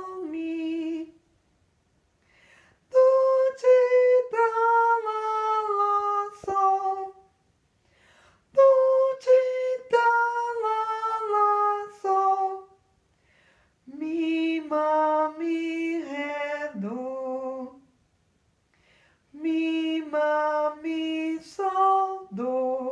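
A woman singing a solfège sight-singing exercise unaccompanied, in short phrases of held, stepwise notes with brief pauses between them. The last two phrases are pitched lower than the first two.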